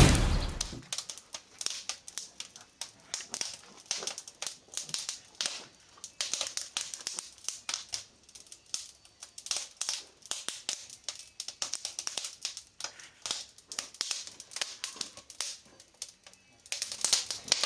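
Wood fire crackling and snapping in a fireplace: a dense, irregular run of sharp pops and clicks. It opens with a loud rush that fades within about a second.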